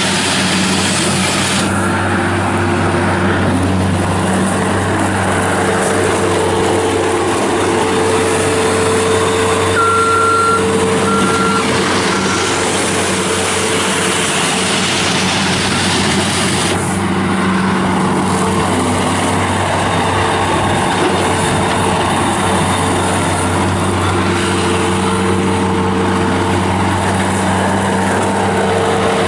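Bobcat S205 skid steer loader's Kubota V2607 diesel engine running steadily while the machine is worked, with three short high beeps about ten seconds in.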